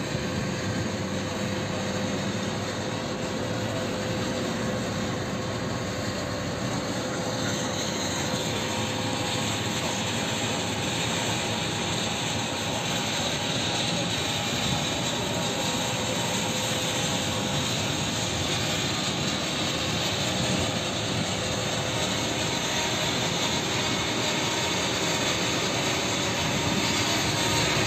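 Turboprop engines of a Canadair water bomber running close by: a steady loud drone with a few held tones, growing slightly louder near the end.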